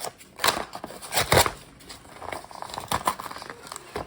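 Irregular crinkling and rustling handling noises, with louder bursts about half a second and about a second and a half in.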